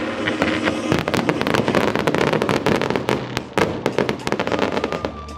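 Fireworks display: a dense, rapid crackling and popping of many small bursts, from crackling stars and ground fountains going off together, thickening about a second in.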